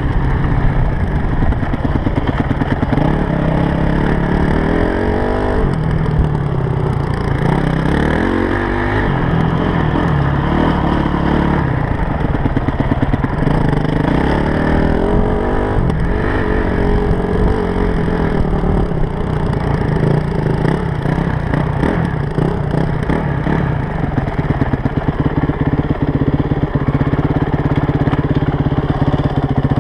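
Honda CRF250X dirt bike's single-cylinder four-stroke engine, heard up close from the rider, revving up and easing off repeatedly as the bike is ridden, then holding a steadier pitch over the last third.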